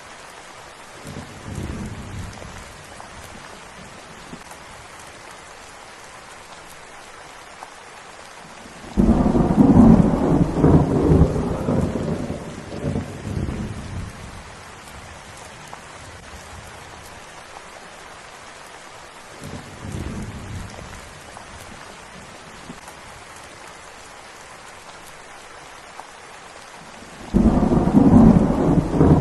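Steady rain with rolls of thunder. A loud low rumble breaks in about nine seconds in and dies away over about five seconds, and another starts near the end. Two fainter rumbles come early on and about twenty seconds in.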